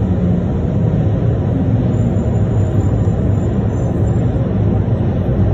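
Miami Metromover rubber-tyred people-mover car running along its elevated guideway, heard from inside the front car: a steady low rumble of tyres and drive.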